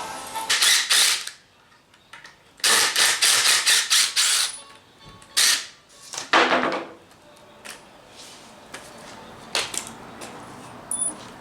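Sharp knocks and bangs: a pair about half a second in, a quick run of about six near three seconds in, then a few single ones and fainter ticks.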